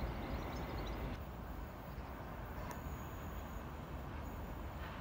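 Steady low outdoor rumble of wind and distant traffic at a railway platform, with faint bird chirps in the first second. No train passes.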